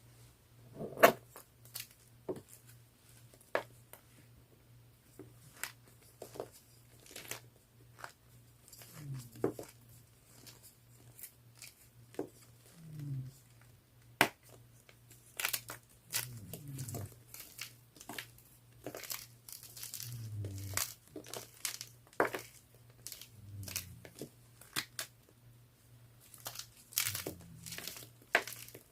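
Blue gym chalk being crunched and crumbled, a run of sharp, irregular crackles and crumbles. Underneath, a dog snores softly about every three to four seconds.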